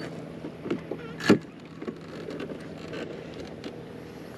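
Small scooter engine idling steadily, with a sharp knock about a second in.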